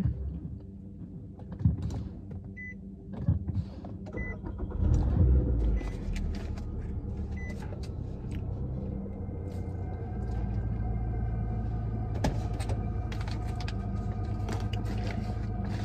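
Car being started to cool the cabin: a few short high chimes and wrapper rustling, a brief low rumble about five seconds in, then the engine and climate fan running with a steady low hum that grows stronger after ten seconds.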